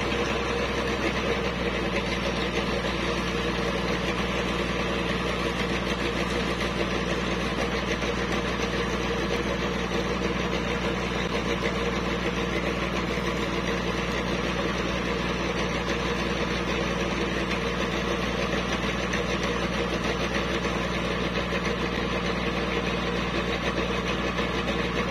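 Engine of a river sand-dredging rig running steadily at a constant pitch, with no change in speed or loudness.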